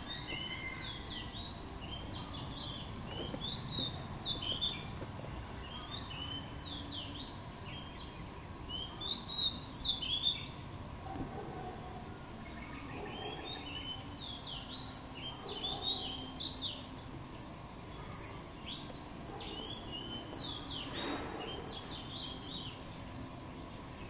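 Small wild birds chirping in clusters of short, sharp, high notes that drop in pitch, loudest about four and ten seconds in.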